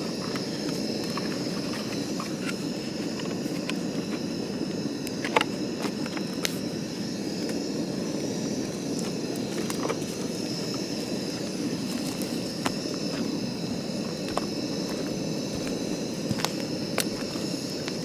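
Portable gas burner running under a kettle with a steady hiss, and a few light clicks and knocks over it.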